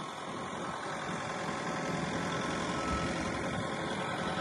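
Diesel engine of a Link-Belt 80X3 hydraulic excavator running steadily.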